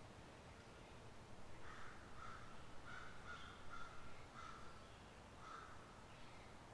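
A bird calling, a run of about six short calls from about a second and a half in until near the end, over the faint steady murmur of a forest creek.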